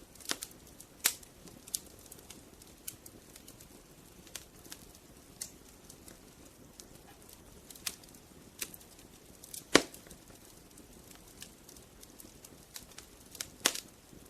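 Wood fire crackling: burning logs pop and snap over a low steady hiss, with louder snaps about a second in, near ten seconds and near the end.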